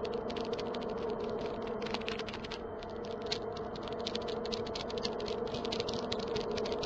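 Rapid, irregular clicking, many clicks a second, over a steady low hum.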